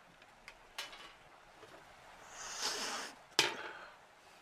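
Light taps and clinks on a silver serving tray on a metal patio table, with a short hiss of about a second in the middle and one sharp clink with a brief ring about three and a half seconds in.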